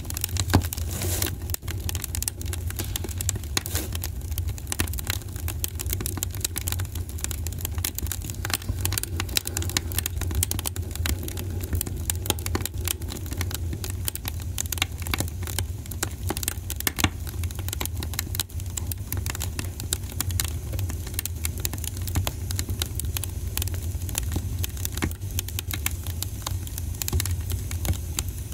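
Dense, irregular rustling and crackling, like leaves, flower stems and wrapping being handled, over a steady low hum.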